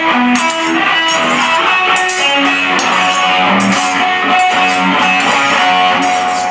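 Electric guitar played through an amplifier: a melodic line of sustained, ringing notes.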